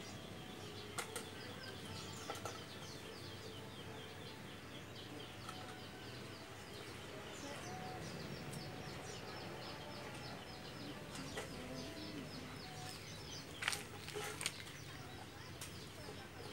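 Small birds chirping throughout, over a low rustle of leaves as tree branches are pulled by hand. A few sharp snaps or clicks, the loudest two close together near the end.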